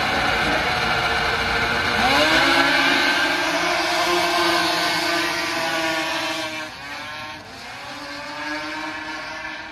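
Several champ-class racing snowmobiles running hard on the ice oval, their engine pitch rising about two seconds in as they accelerate past. The sound falls away after about six and a half seconds as the pack moves off down the track.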